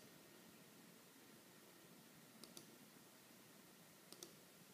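Computer mouse button clicks, two quick pairs about two and a half and four seconds in, over faint room hiss.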